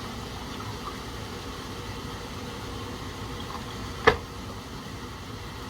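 Steady hiss-like kitchen background noise, with one sharp knock about four seconds in, like a utensil or container striking something.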